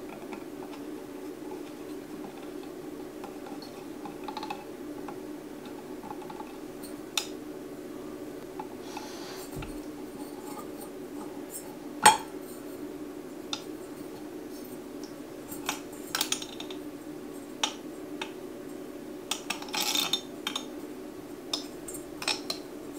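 Scattered clinks and knocks of small hard objects being handled, like tools and hardware during electrical work, over a steady low hum. The loudest knock comes about twelve seconds in, with a quick cluster of clinks near the end.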